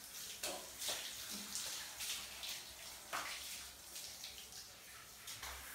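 Water spraying from a handheld shower head onto a golden retriever's wet coat, a steady hiss with uneven splashes.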